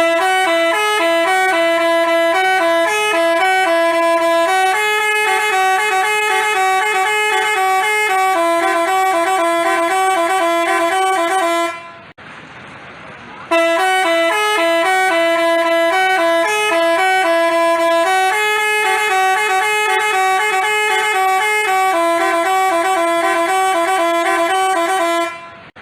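Basuri-type 'telolet' multi-tone bus horn playing a tune of stepped, held notes. The phrase runs about twelve seconds, breaks off for a moment, then plays again.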